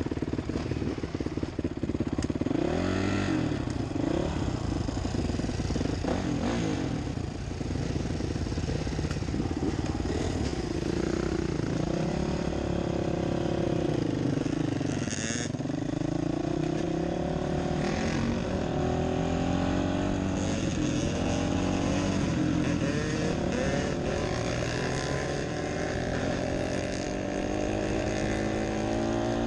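Honda dirt bike engine running under way, its pitch rising and falling again and again as the rider opens and closes the throttle.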